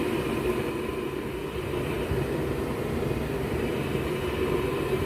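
Homemade propane forge's two burners, fed through MIG-tip jets, running steadily with an even rushing sound and a low rumble.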